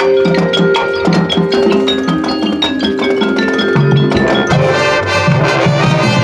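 Marching band playing its field show, the front ensemble's mallet percussion striking quick notes over held chords. Heavier low notes come in about four seconds in.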